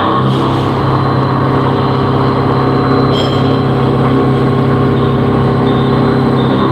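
Vertical machining centre (CNC mill) running while machining a part: a loud, steady hum with several held tones under a rushing noise.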